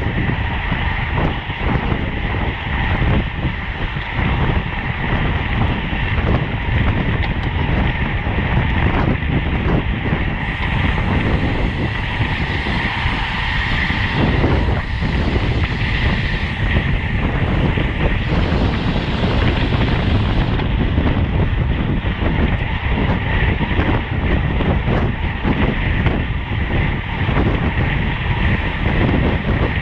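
Wind rushing over the microphone of a road bike ridden at race speed, with steady rolling noise underneath. For about ten seconds in the middle, a brighter, higher hiss joins in.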